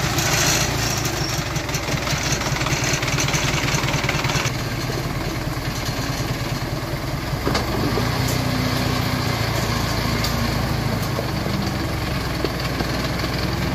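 Engine of a heavy custom-built cargo truck running steadily at low speed, a dense, fast-firing rumble. A brighter hiss over it falls away about four and a half seconds in.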